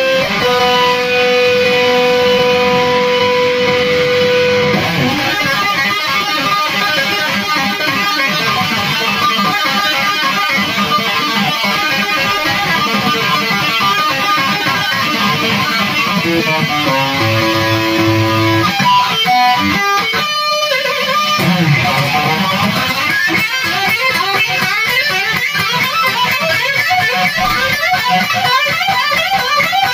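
Solo electric guitar through a high-gain 5150 amp tone, played in fast runs of notes with two-hand tapping. A long held note rings in the first few seconds, and the playing briefly thins out about twenty seconds in.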